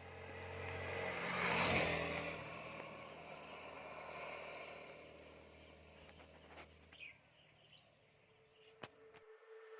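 A motor vehicle's engine running. Its sound swells as it passes about a second and a half in, then fades away, with a few faint clicks later on.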